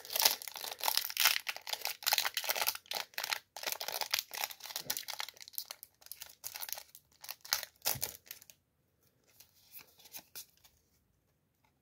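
Foil Yu-Gi-Oh booster pack being torn open by hand, its wrapper crinkling and crackling for about eight seconds. After that come a few faint rustles as the cards are handled.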